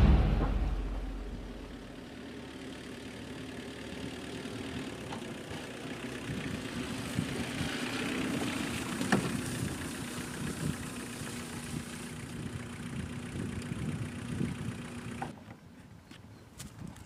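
Music fading out at the start, then a Peugeot 205 hatchback's engine as the car drives slowly across grass, growing louder as it comes closer and then running steadily at rest until it is switched off suddenly about 15 seconds in. A few faint clicks follow.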